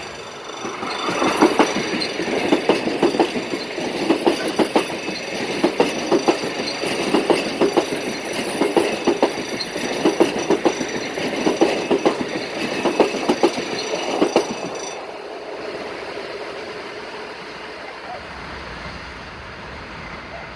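Train passing at speed, its wheels clacking over the rail joints in rapid clusters for about fourteen seconds, then easing to a steady, fading rumble as it goes by.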